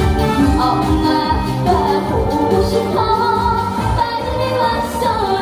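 A Korean trot song performed live: a female singer sings over a band backing track, played loudly through the stage sound system.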